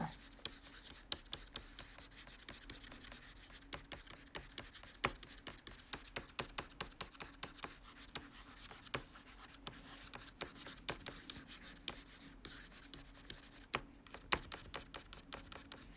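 Faint scratching and many irregular light clicks of a computer pointing device being stroked back and forth on the desk, over a faint steady hum.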